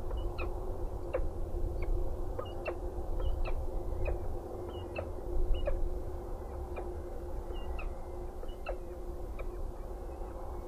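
Peregrine falcon giving short, sharp calls repeated irregularly about once or twice a second, over a steady low rumble and a faint hum.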